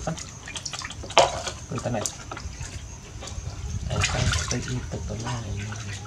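Water splashing and sloshing in a plastic basin as a baby monkey is washed by hand. The sharpest splash comes about a second in, another just before two seconds, and a longer stretch of sloshing around four seconds in.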